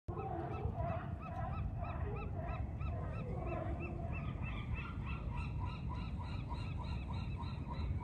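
Gulls calling in a rapid run of repeated yelping notes, about four a second, with lower calls mixed in during the first half and a steady low rumble of wind on the microphone.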